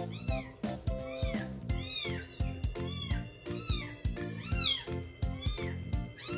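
Very young kitten giving short, high squeaky mews in quick succession, about two a second, while suckling milk from a feeding bottle, over background music.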